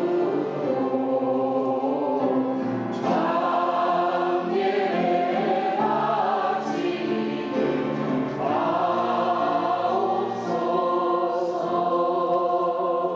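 Choir singing a hymn in long held chords, the harmony shifting every couple of seconds.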